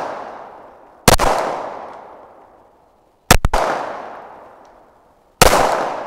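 Three pistol shots from a Glock, about two seconds apart, each followed by a long echo that fades away: slow, aimed fire to check a red dot's zero on paper.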